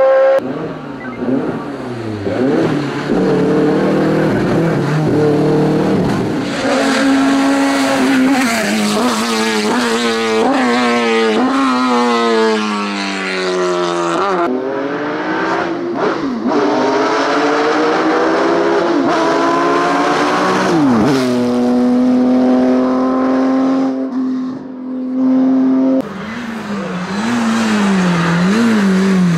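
Racing car engines at full throttle on a hillclimb, revving up through the gears: the pitch climbs again and again and drops sharply at each upshift, with a held steady note near the end, as several cars pass one after another.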